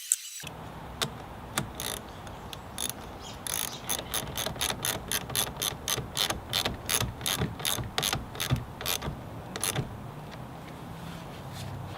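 A ratchet clicking in a steady run of about three to four clicks a second for some six seconds, with a few single clicks before the run.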